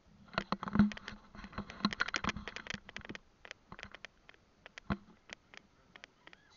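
Handling noise on the camera: a dense flurry of sharp clicks and taps for about three seconds, then scattered single clicks.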